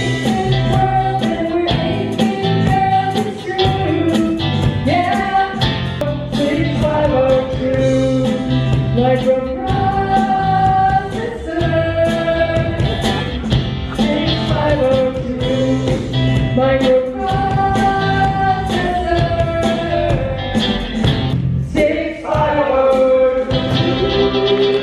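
Live band playing a song with sung vocals over a steady beat.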